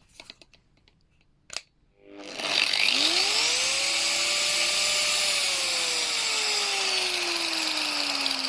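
A mains electric grinder's motor switched on about two seconds in, spinning up with a rising whine, holding at speed briefly, then its pitch slowly sinking while it keeps running. A click comes just before it starts.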